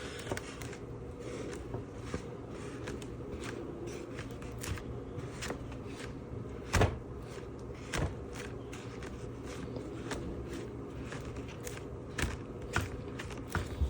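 Scattered light taps and knocks from hands and tools working a wet watercolor painting to lift paint off the paper, with two louder knocks about seven and eight seconds in, over a steady low hum.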